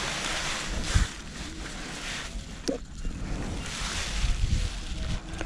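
Wind blowing across the microphone in uneven gusts, with low buffeting thumps.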